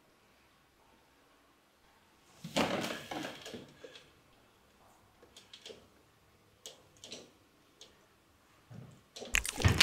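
Quiet room tone broken about two and a half seconds in by a rustling sound, then a few faint clicks. Near the end a sudden loud hit opens into a steady hiss.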